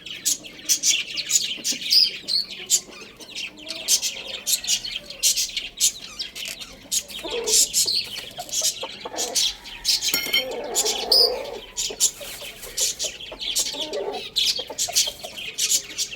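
Many small birds chirping rapidly and continuously, with lower chicken calls breaking in a few times, the longest around the middle.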